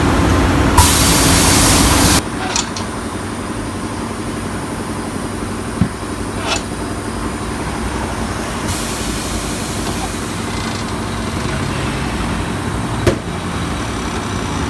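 Compressed air hissing loudly for about a second and a half near the start, with a fainter hiss of air later. Underneath is a steady low hum of shop machinery, with a few short sharp clicks.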